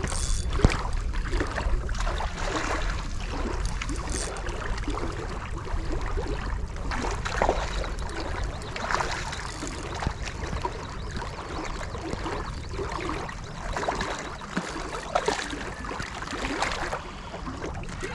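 Water splashing and lapping in irregular bursts as a hooked fish is played at the surface.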